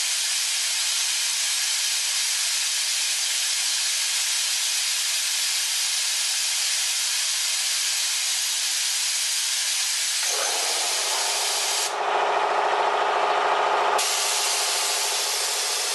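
Compressed air hissing steadily out of an open blow gun on a compressor tank's outlet, drawing the tank down under load. About ten seconds in, a lower hum with overtones joins. The hiss breaks off for about two seconds near the end, then resumes.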